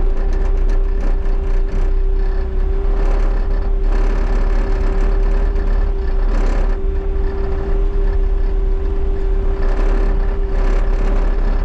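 Bobcat T77 skid steer's diesel engine running steadily with a constant whine, with a few brief louder rushes of noise along the way.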